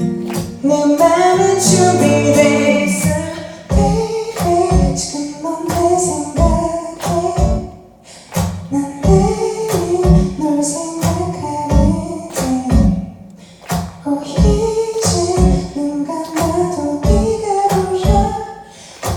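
A live band performing a song: a singer's voice carrying the melody over instruments with a steady drum beat.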